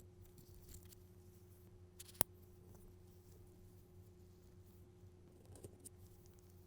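Faint handling sounds of unboxing, with one sharp click about two seconds in, over a steady low electrical hum.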